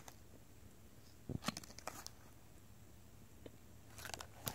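Faint handling noise: a few soft clicks and taps, about a second and a half in and again near the end, as hands move a sneaker and its hang tags in a shoebox.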